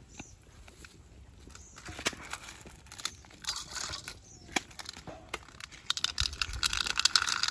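Light knocks and clinks of a steel plate and snail shells against an iron wok of water, then a dense run of clattering, crackling clicks building near the end as the plate is tipped over the wok.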